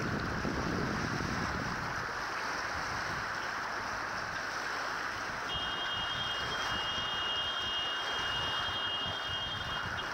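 Wind buffeting the microphone over choppy water washing against a rocky shore. From about halfway through a thin, steady high tone sounds, cutting off near the end.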